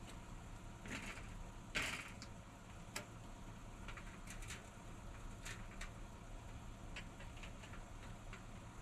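Faint scattered clicks and light knocks, with a brief rustle about two seconds in, over a low steady background hum.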